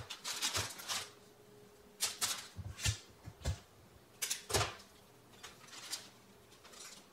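Cookie dough balls being rolled in coarse red sugar sprinkles in a bowl and set down on parchment paper: a series of short gritty rustles with soft taps, separated by quiet gaps.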